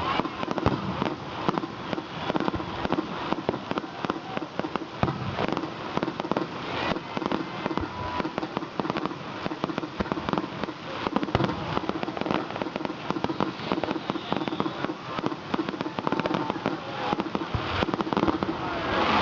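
Aerial fireworks going off in rapid succession: a dense run of sharp bangs and crackling pops with no let-up.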